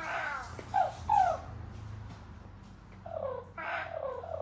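Cookeez Makery interactive plush pet's electronic cute-animal squeaks: a few short, pitch-sliding squeaks at the start and another run near the end, with a low hum in between.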